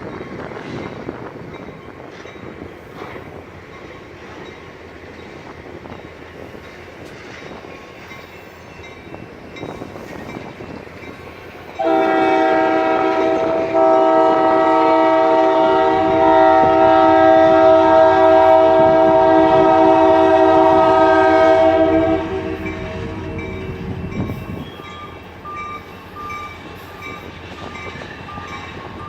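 Freight train led by a pair of EMD SD40-2 diesel locomotives running past with a steady rumble. About twelve seconds in, the locomotive's air horn sounds one long chord of several notes that lasts about ten seconds and cuts off sharply. The rumble is heaviest during the second half of the blast.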